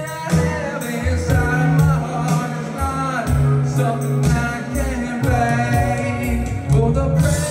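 A live rock band playing a song: a steady, heavy bass line under drums, with pitched lines sliding above that are probably singing.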